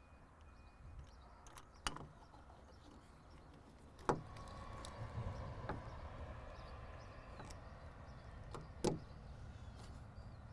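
Small sharp clicks and taps of a plastic turn-signal lamp lens being fitted back onto a truck's side lamp and its screws driven in with a Phillips screwdriver, about four clear clicks in all, over a faint low rumble.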